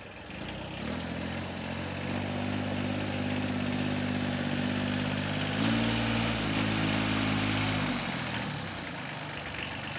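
Kubota L2050 tractor's three-cylinder diesel engine running as the tractor drives closer, growing louder. A little past halfway the engine speed picks up briefly, then drops back and the sound fades near the end.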